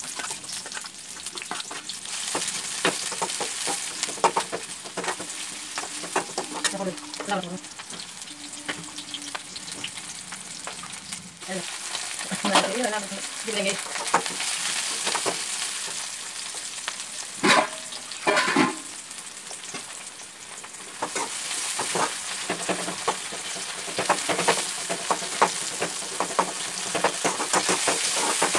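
Chopped onions, then tomatoes and green chillies, sizzling as they fry in a steel kadai, with a spatula scraping and clinking against the metal pan as they are stirred. A couple of louder ringing clanks come a little past the middle.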